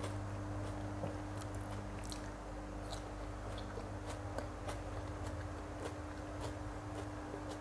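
Close-miked eating sounds of a tomato slice dipped in sauce being chewed: soft wet smacks and small mouth clicks scattered throughout, over a steady low hum.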